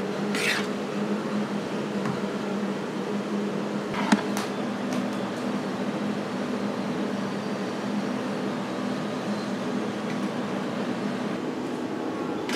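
Steady mechanical hum of a running stainless-steel ice cream machine. Over it come a brief scrape about half a second in and a sharp knock about four seconds in, from the scoop and plastic tub.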